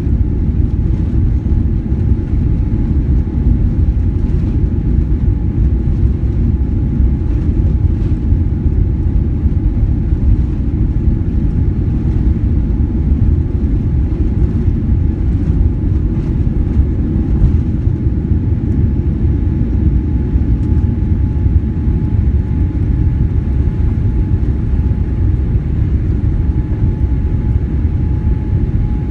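Boeing 787 on its takeoff roll and liftoff, heard inside the cabin: a loud, steady low roar of the jet engines at takeoff power and runway rumble, with a faint steady whine above it.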